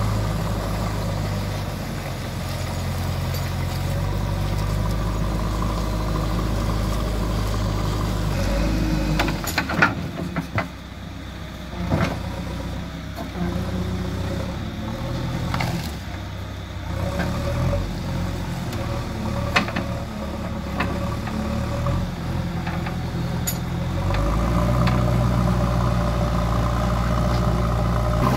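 JCB 3DX backhoe loader's diesel engine running steadily at working revs. About a third of the way in it drops lower, with several sharp knocks and clatters. Near the end it picks up again to a fuller, louder run.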